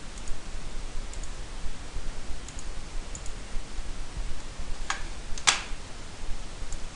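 Light computer clicks over steady background hiss and low hum, as a fresh blank screen is brought up: a few faint ticks, then two sharper clicks about five seconds in.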